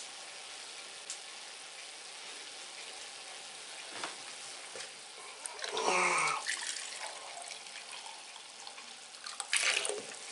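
Soak water from a new oak barrel running out of a hose into a plastic bucket, a steady splashing trickle. About six seconds in, a glass dipped into the bucket gurgles as it fills, and there is more splashing near the end as it is lifted out.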